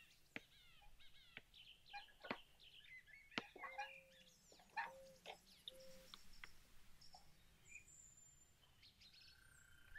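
Faint birdsong: several birds chirping and twittering with quick sweeping notes, and three short, low, steady notes about four to six seconds in.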